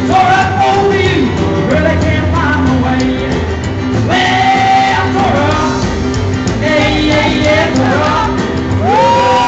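Live rock and roll: a male singer singing into a microphone while playing an electric keyboard, backed by a drum kit. He holds a long sung note near the end.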